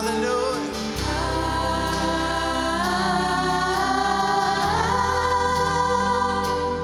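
Live worship band music: sustained chords over low bass notes that change a couple of times, with a woman singing into a microphone.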